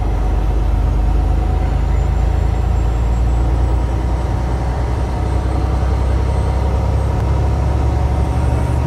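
Heavy truck's engine and road noise heard from inside the cab while driving: a steady low rumble.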